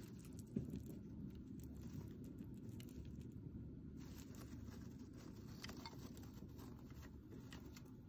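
Faint rustling and light patter of a dwarf hamster moving over wood-shaving bedding, with scattered soft ticks in the second half, over a low steady hum; a soft knock comes just after the start.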